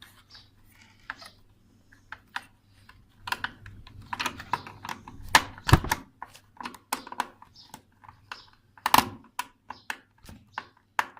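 Irregular clicks, taps and knocks of computer parts being handled and fitted together by hand, with two louder knocks, one about halfway through and another a few seconds later.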